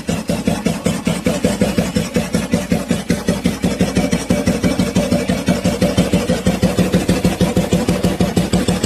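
1956 Norton ES2's single-cylinder four-stroke engine idling with a steady, even exhaust beat.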